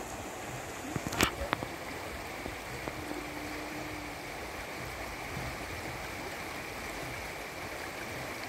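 Steady rush of a river running over rapids, with a few sharp clicks about a second in.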